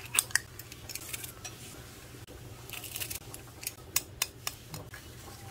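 A metal garlic press squeezing garlic cloves over a glass bowl, with sharp clicks of metal on metal and of a metal spoon against the glass bowl as the garlic is scraped off. There are two short squeezes and a scatter of single clicks.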